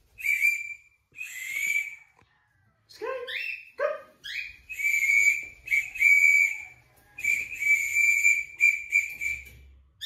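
A small whistle blown in a series of short and longer blasts on one steady high note, several starting with a quick upward slide in pitch. It is a recall signal calling a pet cockatiel back.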